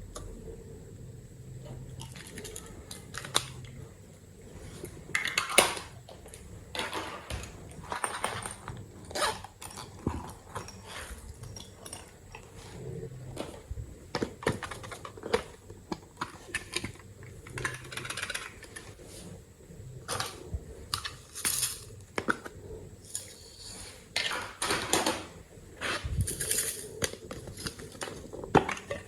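Slime being mixed and worked by hand, giving irregular sticky clicks, pops and squishes, with light clinks like a utensil against a bowl.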